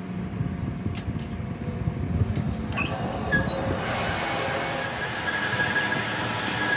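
Heavy machinery running with a low rumble. About three seconds in, a louder hiss joins it, with a high, steady squealing tone.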